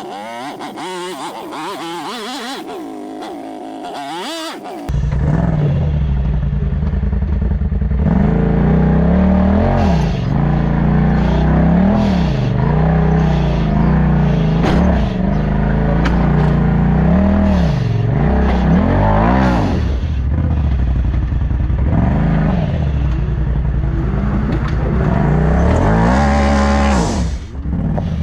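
Side-by-side UTV engine revving under load in repeated surges that rise and fall, with some clatter. About five seconds in, the sound jumps abruptly to a louder, deeper engine note.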